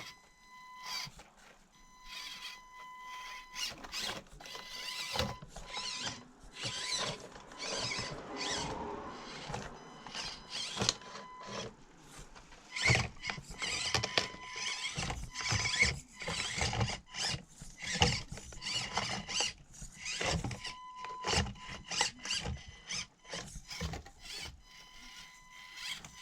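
Axial SCX24 Deadbolt micro RC crawler working over a crawler course. Its small electric drivetrain whines in spurts, with a thin steady high tone coming and going, among many irregular clicks and knocks of tyres and chassis against the terrain.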